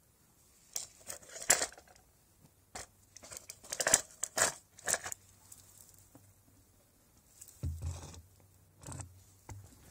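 Small metal compressor parts clinking and a thin plastic tub crinkling as the parts are handled and set into it: irregular clicks and rustles, loudest about a second and a half in and again about four seconds in.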